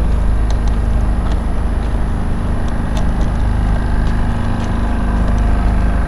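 Steady low rumble of city background noise, with light, irregular clicks of footsteps walking.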